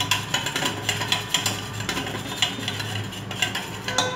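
Wire balloon whisk beating yogurt in a stainless steel bowl: quick, irregular scraping and clinking of the wires against the steel, stopping near the end.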